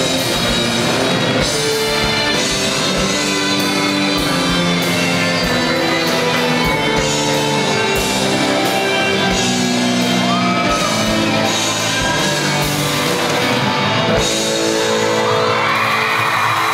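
Live rock band with violin, electric guitars, bass, keyboard and drums playing through a PA, the drums keeping a steady beat. Near the end the crowd starts cheering.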